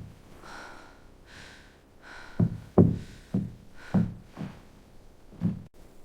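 A series of about six dull knocks at irregular intervals, starting a little over two seconds in, with short swishing scrapes before and between them.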